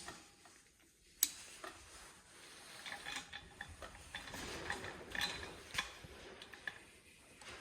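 Lock wire pliers being worked to twist wire: a sharp metallic click about a second in, then a run of irregular small clicks and rattles as the spiral twisting mechanism is pulled and spins the locked jaws.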